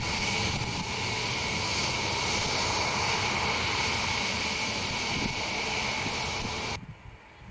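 Ilyushin Il-76's four Soloviev D-30KP turbofan engines running at close range as the freighter taxis, a steady jet roar with a high whine over it. The sound cuts off abruptly about seven seconds in, leaving only faint outdoor noise.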